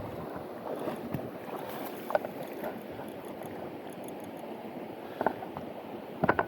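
A steady low rushing noise, like moving water or wind, with a few short knocks about two, five and six seconds in; the last knock is the loudest.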